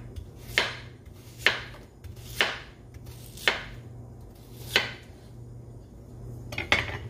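Kitchen knife slicing down through chayote squash and striking a wooden cutting board: about six cuts, roughly a second apart, while the squash is diced into small cubes. A steady low hum runs underneath.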